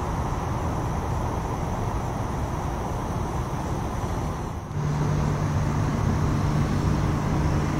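Steady road traffic noise. About two-thirds of the way in, a steady low engine hum joins it.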